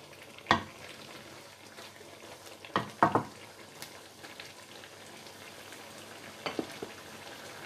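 Prawns sizzling steadily in a wok in the water they have released, the liquid cooking down. A wooden spoon stirring them knocks against the pan a few times, about half a second in, around three seconds in, and once more near the end.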